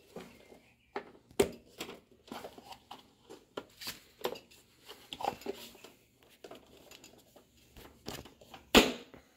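Plastic clicks and rattles as the air filter housing of a Honda HRX217 mower is handled and the pleated filter is seated, ending with one loud snap near the end as the cover is pressed shut.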